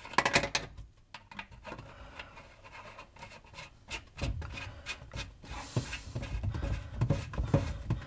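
A nut being screwed down by hand onto the fitting in the floor of a Candy CDP 4609 dishwasher's stainless-steel tub: rubbing and scraping with many scattered clicks and knocks, a quick cluster of sharp clicks at the start.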